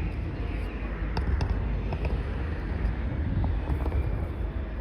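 Outdoor street ambience: wind rumbling on the microphone over a steady low background hum, with a few faint clicks.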